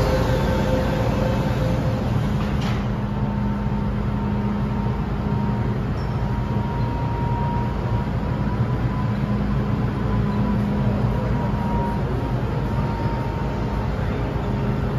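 MTR M-train standing at an underground platform: its doors shut with a single clunk about three seconds in, then the stopped train gives a steady hum with a faint high electrical whine over the platform's background noise.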